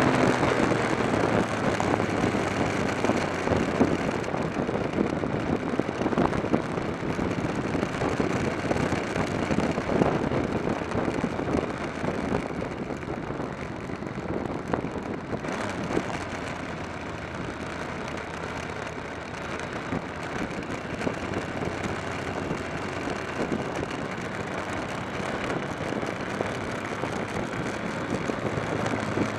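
A motorcycle riding along at steady speed, heard from a camera on the bike: the engine runs under a steady rush of wind and road noise. It gradually gets quieter through the first two-thirds, then picks up a little near the end.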